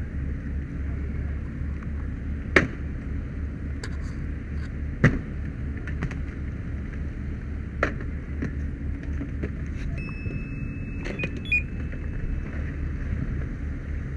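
A running engine's steady low rumble, with a few sharp cracks every two to three seconds and a thin high steady tone for a couple of seconds late on.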